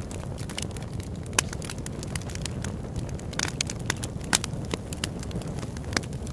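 Steady low rumble with frequent sharp crackles and pops scattered through it, the loudest about a second and a half in and again past the middle.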